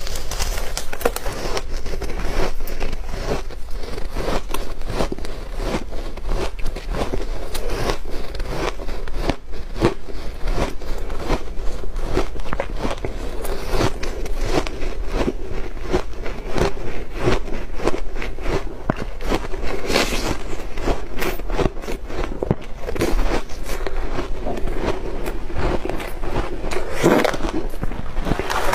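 Refrozen shaved ice crunching as it is bitten and chewed, close-miked, in a dense run of crisp cracks.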